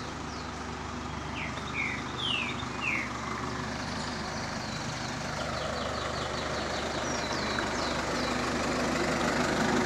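Backhoe loader's diesel engine idling steadily, growing slowly louder toward the end. Birds chirp over it: a few quick falling chirps in the first few seconds and a fast trill in the middle.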